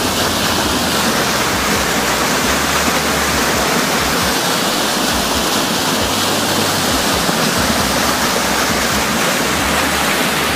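Floodwater of the Meramec River rushing in churning whitewater, a steady, even rushing noise.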